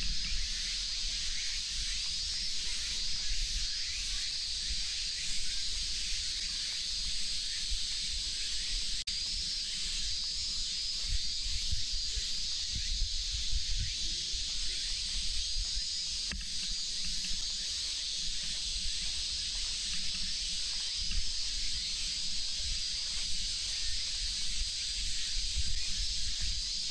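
Cicadas droning in a steady high chorus, with low rumbling underneath.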